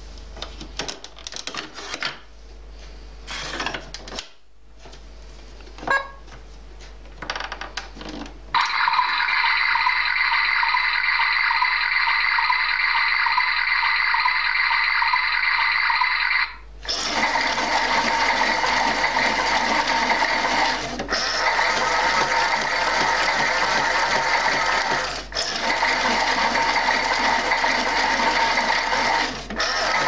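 LIMO TOY toy washing machine running. A few clicks of handling and button presses come first. Its small motor then starts about eight seconds in and whirs steadily. After a short break about halfway through, it continues in a fuller tone, with a few brief dips.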